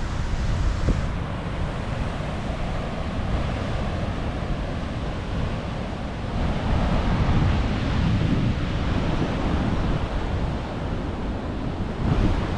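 Wind buffeting the microphone over the wash of ocean surf, with a louder swell about six seconds in that eases off a few seconds later.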